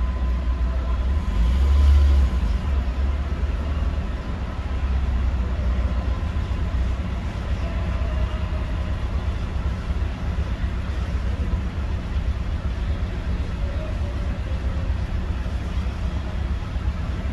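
Low, steady rumble of a Ford E-150 van's engine, heard through a dash cam inside the cab, swelling briefly about two seconds in.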